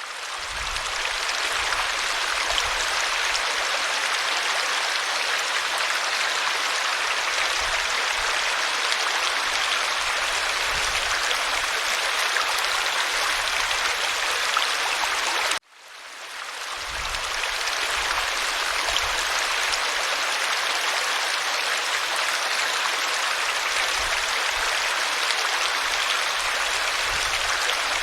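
Mountain river flowing with a steady rush of water. It fades in at the start, cuts out suddenly about halfway through, and fades back in.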